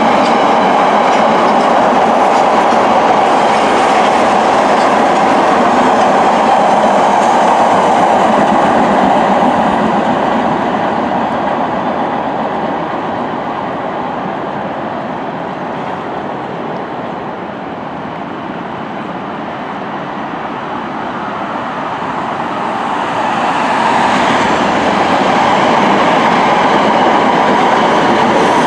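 MBTA Red Line subway train running over the rails of a bridge: a steady, loud noise of wheels on track. It fades down through the middle and grows louder again near the end.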